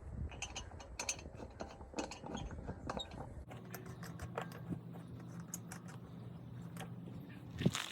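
Scattered light metallic clicks and taps of hand work on a truck wheel during a tire change, with a steady low hum coming in about three and a half seconds in.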